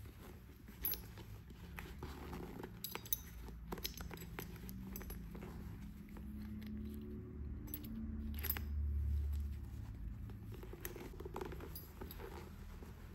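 Handling of a Bell Bullitt helmet's lining and chin strap: scattered sharp clicks of the metal double D-rings and light rustling of the strap and padding, over a steady low rumble.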